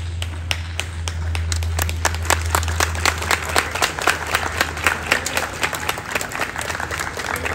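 Crowd clapping and applauding, a dense, irregular patter of claps that builds up about two seconds in, over a steady low hum.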